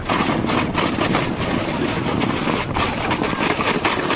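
Steady rushing noise with a low rumble and dense crackling scrapes, like wind buffeting an action camera's microphone while moving quickly over snow.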